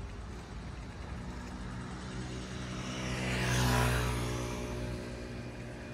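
Motor scooter passing close by: its engine swells to a peak about four seconds in, then fades, over a steady hum of city traffic.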